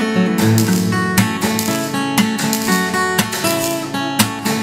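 Solo acoustic guitar music, with plucked and strummed chords played in a steady rhythm.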